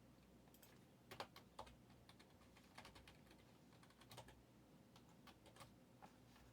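Faint, irregular typing on a computer keyboard: scattered key clicks, some in quick little runs, over a quiet room.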